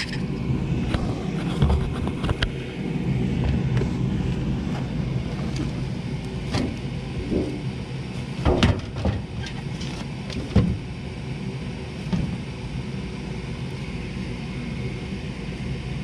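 Gas furnace's draft inducer motor running with a steady low hum while the furnace sits on a three-blink fault, a pressure switch stuck open. A few sharp knocks around the middle.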